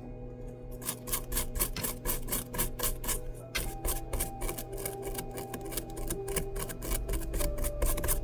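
Brush scrubbing back and forth on a phone's circuit board, cleaning the charging-port area after soldering: quick, even scraping strokes about four a second, starting about a second in.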